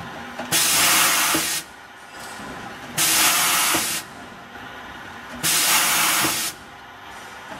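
Automatic bottle-neck trimming machine running its cycle: three bursts of air hiss, each about a second long and about two and a half seconds apart, each ending in a light click, with quieter steady machine noise between them.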